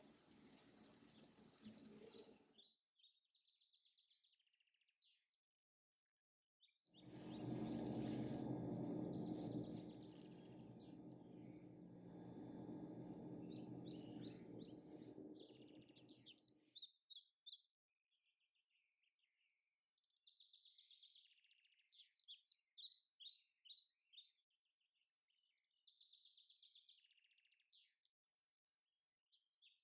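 Small birds chirping and twittering in repeated short phrases. In the middle a louder, steady sound with a low sustained hum runs for about ten seconds, and the opening two seconds hold a faint hiss.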